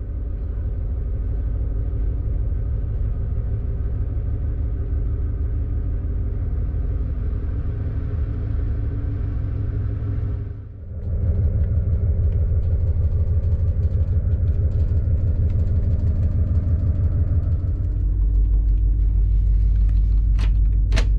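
Steady low rumble and hum of the ferry M/V Northern Adventure's engines under way, with a fast throb running through it; it dips briefly and comes back louder about eleven seconds in, deepens again near the end, and a few clicks sound just before the end.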